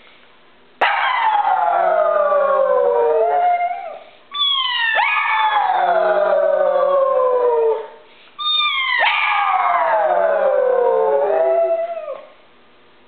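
A pug and a woman howling together: three long howls, each about three seconds and falling in pitch, with short pauses between them. The pug copies the woman's howl.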